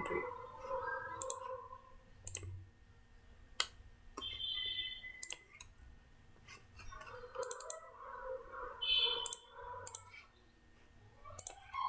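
Computer mouse clicking: sharp single clicks roughly every second, with a quick cluster of several clicks in the second half.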